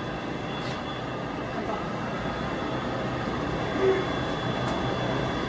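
Steady low rumble and hum of a concrete parking garage's background noise, with no distinct events.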